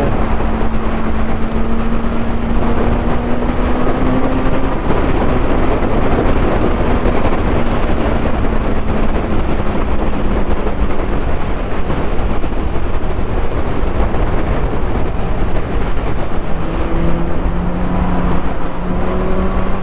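Loud wind noise rushing over the rider-worn microphone at motorway speed on an unfaired 2021 Suzuki GSX-S1000, with the bike's inline-four engine note running steadily underneath. The engine pitch rises slightly at first and sits lower near the end.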